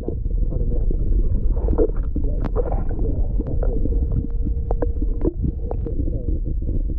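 Muffled underwater rumble and rush of water heard through a submerged camera, with scattered sharp clicks and knocks.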